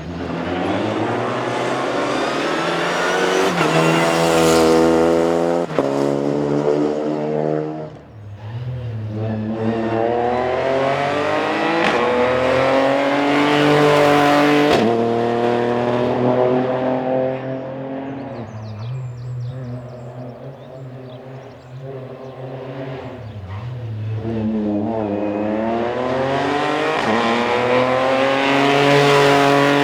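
Rally car engines at full throttle, the engine note climbing in pitch through each gear and dropping sharply at every upshift. One car's engine fades away past the middle, and another climbs in pitch and grows louder near the end.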